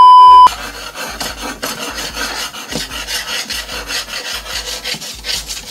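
A loud, steady test-tone beep, the kind that goes with TV colour bars, for about half a second at the start. It then gives way to a rhythmic, scratchy rubbing rasp.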